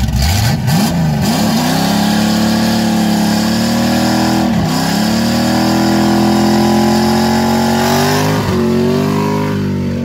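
Camaro's engine revving hard and held at high revs during a burnout, the rear tire spinning. The engine note climbs at the start, dips sharply twice and rises again near the end.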